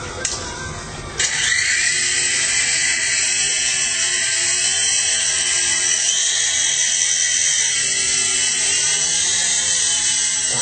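Small electric RC helicopter's motor and rotors starting abruptly about a second in and running with a high whine that wavers in pitch as the throttle changes.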